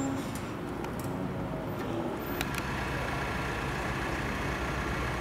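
Vehicle engine idling, a steady low drone with no sirens sounding.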